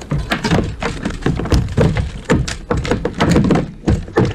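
A rapid, irregular run of thumps and knocks on a plastic fishing kayak as a lingcod tangled in fishing line and a landing net is handled on the deck.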